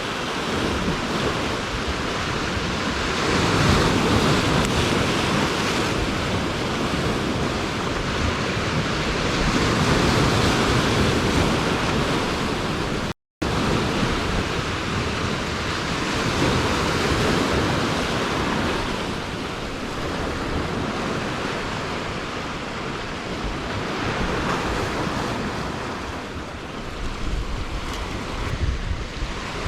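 Sea waves washing and surging with wind buffeting the microphone, swelling and easing every few seconds; the sound cuts out completely for a moment about 13 seconds in.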